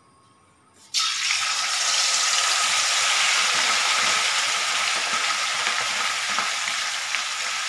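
Masala-coated prawns sizzling as they go into hot coconut oil about a second in, then frying steadily while being stirred with a spoon.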